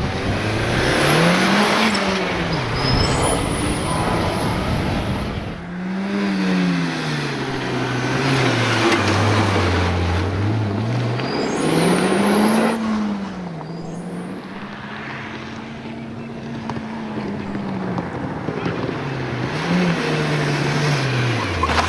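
Mitsubishi Lancer Evolution rally car's turbocharged four-cylinder engine on a stage run, its pitch rising and falling again and again as the driver accelerates, shifts and lifts for corners. The engine fades somewhat near the middle, then builds again toward the end as the car comes closer.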